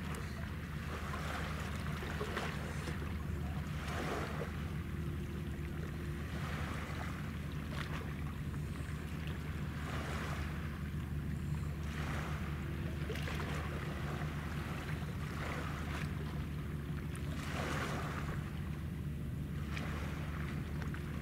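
Steady low hum of a moored warship's machinery, with waves lapping in soft swells every second or two.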